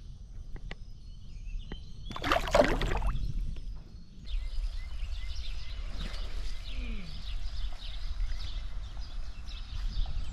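A splash of water about two seconds in as a bass is let go at the surface. Then outdoor creek ambience with a low rumble and many short, falling bird chirps.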